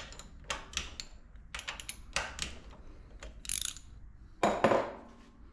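Socket ratchet clicking in short, irregular bursts as the valve cover bolts on a small air-cooled diesel engine are loosened, with a louder metallic clatter about four and a half seconds in.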